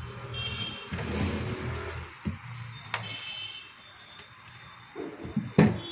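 Hot-air rework station blowing, a steady low hum with a hiss, as the solder balls on the IC are reflowed. It stops after about three seconds, followed by small clicks and a sharp clack near the end as metal tweezers are handled on the bench.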